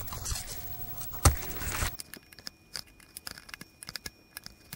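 Handling noise from working a small tool at the plastic cover of a relay on a furnace control board: light scrapes and clicks, with one sharper knock about a second in, then only faint scattered ticks.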